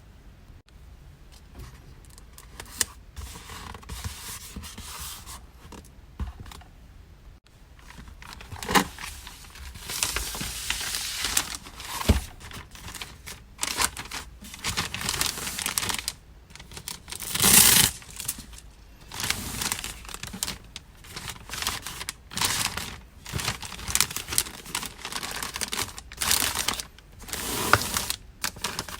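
Hands packing an order: plastic and paper packaging rustling and crinkling, with scattered taps and clicks and short tearing sounds. The loudest is a scratchy rip just past the middle.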